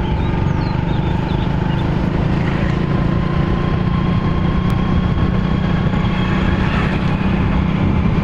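Steady engine hum and road and wind noise of a moving vehicle, heard from on board while it rides along at an even speed.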